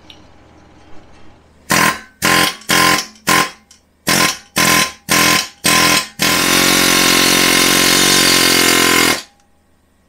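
Pneumatic air hammer rattling against a rusted-in rear wheel hub, hammering it out of the knuckle: about eight short bursts, then one sustained run of about three seconds that stops abruptly.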